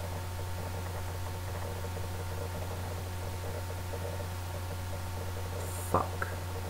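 Steady low electrical hum with faint hiss: the room tone of a webcam microphone. About six seconds in there is one brief mouth sound.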